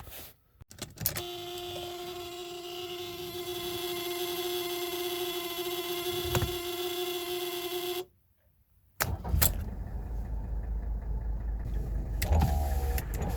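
Mercedes W123 electric window motor running as the switch is tested: a click, then a steady whine for about seven seconds that cuts off suddenly, the sign that the cleaned and rebuilt window switch is working. After a short silence a second click starts a lower, duller running sound.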